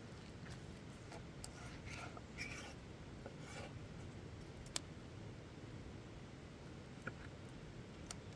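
Large chef's knife slicing through a cooked steak on a wooden cutting board: a few short, quiet scraping strokes in the first half, then a sharp click about halfway and lighter ticks near the end.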